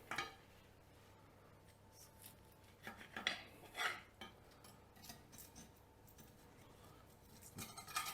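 A few short, faint scrapes and snips of a kitchen utensil working on the baked potato omelette, a couple of them close together a little past the middle.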